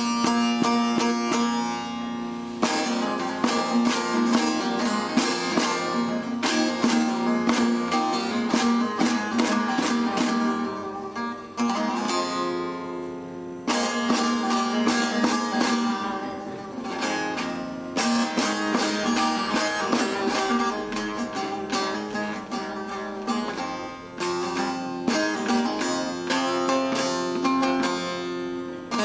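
Instrumental passage of a Zaza folk song on a saz (bağlama), a long-necked lute: quick runs of plucked notes over a ringing open-string drone, with a couple of brief pauses between phrases.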